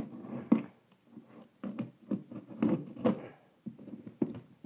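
Clear plastic wrap on a cardboard shipping box crinkling and rustling as it is handled, with irregular scrapes and light knocks against the cardboard.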